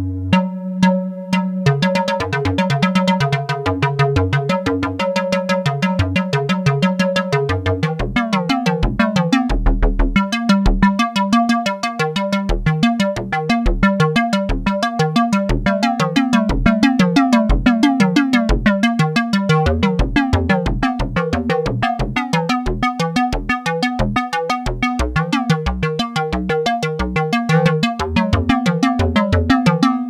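Black Corporation ISE-NIN 8-voice analogue polysynth played dry with no effects, running a preset as a fast, evenly repeating run of notes. A low bass part comes in about eight seconds in.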